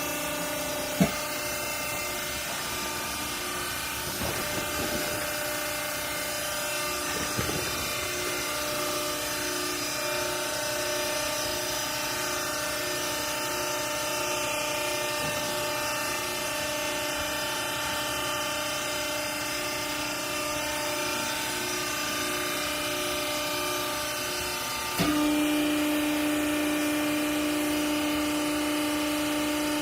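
Hydraulic clothes baler running with a steady electric-motor and pump hum, with a sharp click about a second in. Near the end the hum drops slightly in pitch and becomes louder.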